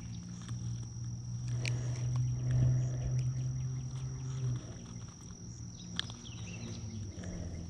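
A steady, high-pitched insect drone, with a low hum through the first half. A couple of sharp clicks come as metal fishing pliers work a hook out of a small sunfish's mouth.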